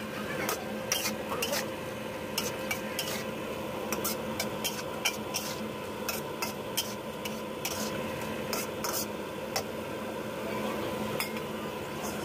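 Metal spatula scraping and clinking against a steel wok while stir-frying mushroom slices in sauce, in irregular strokes several times a second.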